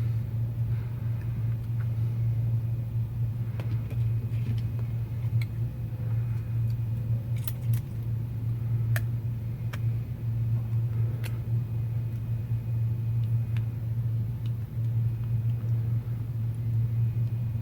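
A steady low hum, with scattered light clicks and ticks from Kapton tape being handled and pressed over exposed solder joints.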